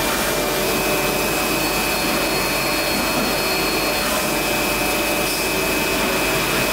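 Citizen Cincom CNC lathe running inside its enclosure with coolant spraying onto the work area: a steady hiss of coolant over machine hum, with a high steady whine on top.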